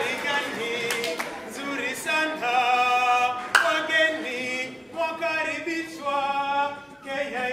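Male choir singing a cappella in close harmony, holding long chords. A few sharp percussive hits cut across the singing, the loudest about halfway through.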